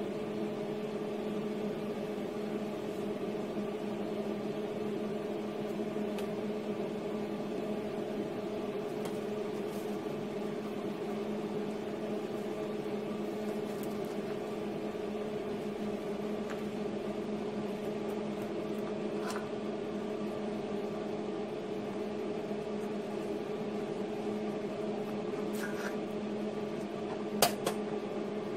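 Hobart Handler 120 MIG welder humming steadily while switched on and idle. A couple of short sharp cracks near the end.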